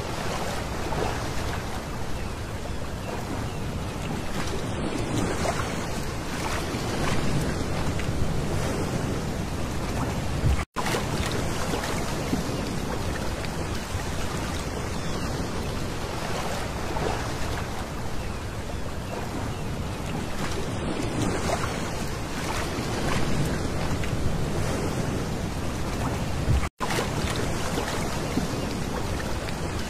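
Small waves breaking and washing back over a pebble beach, a steady surf that swells and eases every few seconds. The sound cuts out for an instant twice.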